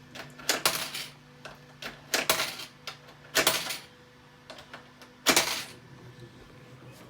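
Vending machine clicking and clattering in four short bursts, the last one loudest, over the machine's faint steady hum.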